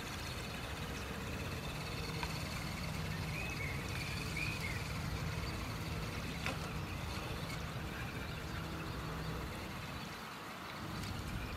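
Axial Honcho RC scale truck driving through shallow water: its motor and drivetrain make a steady low hum under the churning and splashing of its wheels, easing off about ten seconds in.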